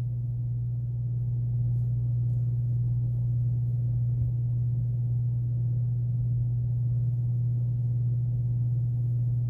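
A steady, fairly loud low hum that holds one pitch and level throughout, with no hook or yarn sounds standing out.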